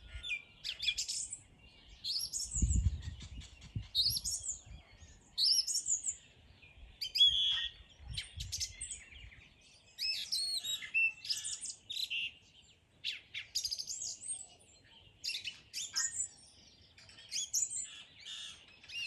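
A songbird singing: phrases of quick, high whistled and chirping notes, repeated about every second or two with short pauses between them. A low rumble sounds briefly about three seconds in.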